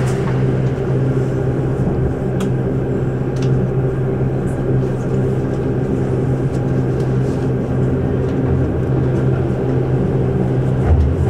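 Inside a Keihan 8000 series electric train pulling out of a station: a steady low hum with rumble as the car gets under way, and two sharp clicks about two and three and a half seconds in.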